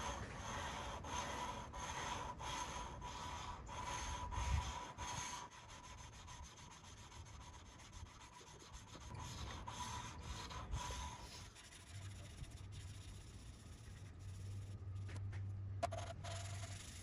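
Valve of a 1931 Ford Model A four-cylinder flathead being lapped by hand: a suction-cup lapping tool spun back and forth grinds the valve face against its seat with lapping compound in rhythmic rubbing strokes.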